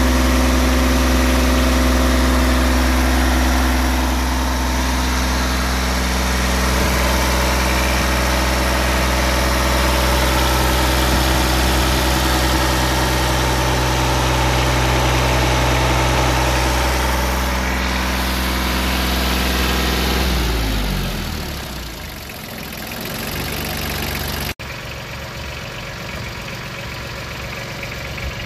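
Yanmar Ke-4 compact tractor's diesel engine idling steadily. About 20 seconds in, its note slides down and dies away as the engine stops. After that a quieter, rough low rumble continues.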